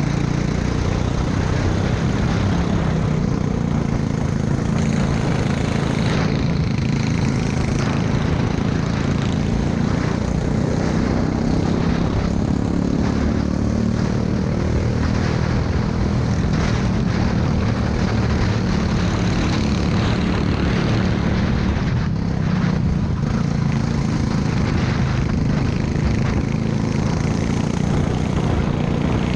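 Racing go-kart's small engine running hard at race speed, heard onboard from the driver's seat as a steady buzz.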